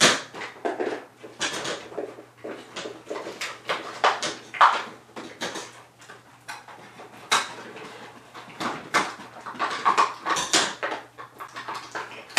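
Toy blocks and their packaging being handled: a steady run of clicks, knocks and rustles as the pieces are taken out and moved about.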